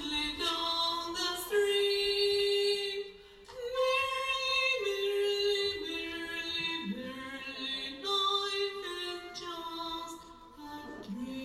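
A voice singing a slow melody of long held notes, with a short break about three seconds in.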